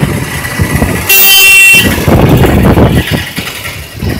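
A vehicle horn sounds one loud, steady blast of under a second, about a second in, over the rumbling road noise of a moving vehicle in traffic.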